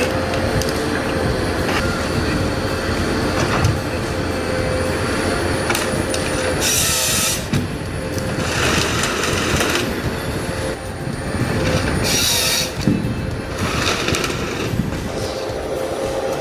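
Heavy forestry machine working: its diesel engine runs steadily with a constant whine, and four short bursts of hiss break through.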